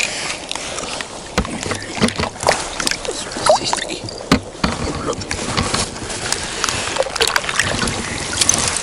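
Handling noise: irregular knocks, scrapes and rustles as a freshly caught large roach is gripped and held over wet ice, with the camera rubbing close by.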